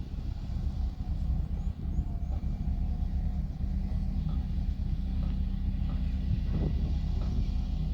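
Diesel engine of heavy road-construction machinery running steadily with a low rumble, with a few faint knocks over it.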